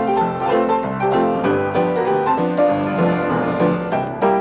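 Instrumental piano music, a quick run of evenly paced notes over lower chords.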